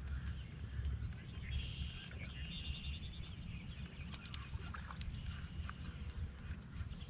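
Quiet open-water ambience: a low wind rumble on the microphone and a steady high thin tone, with a short spell of faint insect-like chirping about a second and a half in and a few light clicks.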